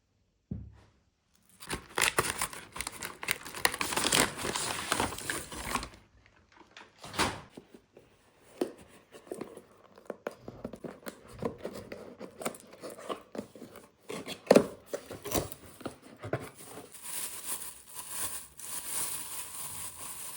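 Packaging being torn open and crinkled by hand: a run of ripping and rustling noises, broken by short pauses about six and fourteen seconds in.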